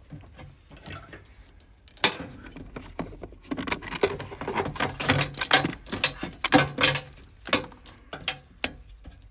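Irregular clinks and knocks of hand work on the metal casing of a Toyota Auris hybrid battery pack, tools and parts clattering against the metal. It is quieter at first and becomes a dense run of clicks from about two seconds in.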